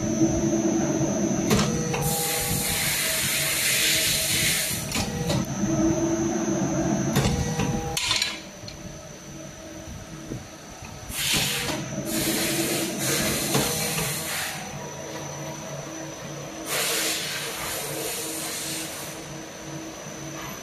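Three-roll hydraulic thread rolling machine running through its rolling cycles as blanks are fed by hand, over a steady motor hum. Bursts of hiss lasting two to three seconds come several times, and a loud low rumble drops away about a third of the way in.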